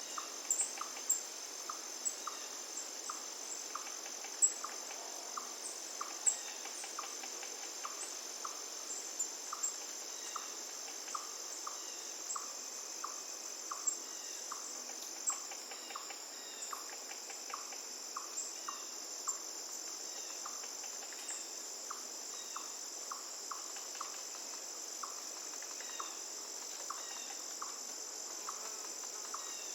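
Steady high-pitched trilling of crickets or similar insects, with short chirps repeating regularly a little over once a second and occasional sharp bird chirps. A faint even rush of river water runs underneath.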